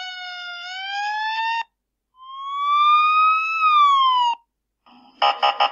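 Synthesized siren sound effects: a rising wail that cuts off suddenly at about a second and a half, then a second wail that rises and falls. Near the end, a run of short pulsed tones begins.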